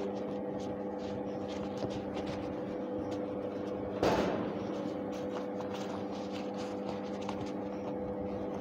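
Leather welding gloves being pulled on and worked over the hands: faint rustling and handling noise, with one louder rustle about four seconds in, over a steady electrical hum.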